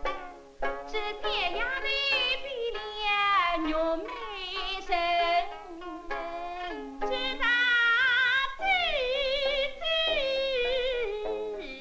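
A woman singing a Suzhou pingtan ballad in a high voice with heavy vibrato, accompanied by plucked sanxian and pipa.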